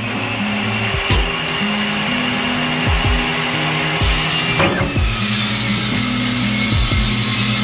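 Background music with a low bass line that steps from note to note and a recurring low thump of a beat.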